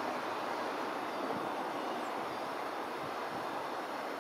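Steady engine drone of a first-generation diesel railcar idling at a standstill, even in level throughout.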